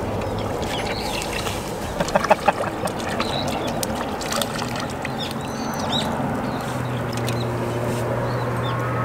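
A hooked crucian carp splashing at the water's surface while being played on a pole rod, with a quick cluster of several sharp splashes about two seconds in, over steady background noise.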